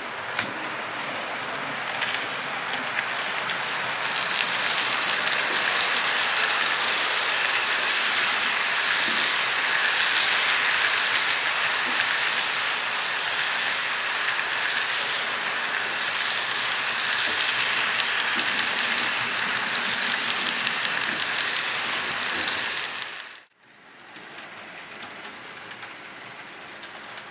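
Model freight train running past close by: a dense rushing rattle of small metal wheels on the track, full of fine rapid clicks, building over the first few seconds. Near the end it cuts off abruptly and a quieter, steady running sound follows.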